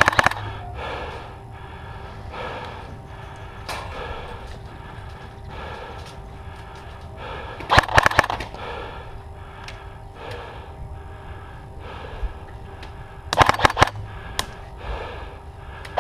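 Airsoft guns firing short rapid bursts of shots: one at the start, one about halfway through and one near the end.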